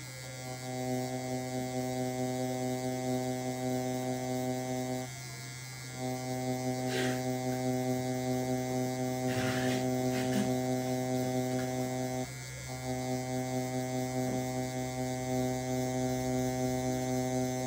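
Meta V digital permanent-makeup machine handpiece running at top speed (level 10) while the needle draws hair strokes on practice skin: a steady electric buzz. It stops briefly about five seconds in and again about twelve seconds in.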